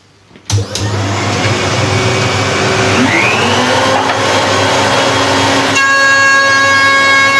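A router table's router and its dust extraction switch on about half a second in with a loud, steady machine noise. The router's pitch rises around three seconds in as the cutter speed is built up, and from about six seconds a steady high whine sets in as the bevel cutter runs at speed with the board being fed through.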